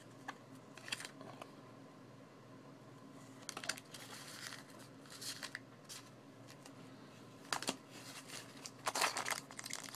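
Pokémon trading cards being handled and slid over one another: a few soft flicks and scrapes. Near the end a foil booster pack crinkles as it is picked up.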